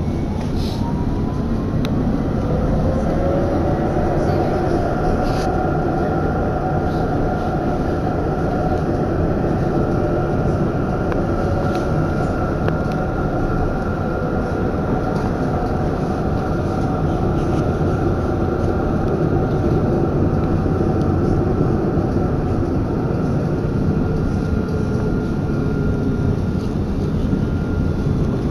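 Alstom Citadis 302 tram heard from inside while running: steady rumble of wheels on rails. The electric traction motors' whine rises in pitch over the first few seconds as the tram gathers speed, then holds a steady tone.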